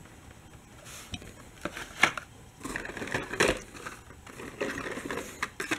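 Plastic blister packs on cardboard backing cards of Hot Wheels cars crinkling and clicking as they are handled and shuffled, in irregular rustles with a few sharper clicks.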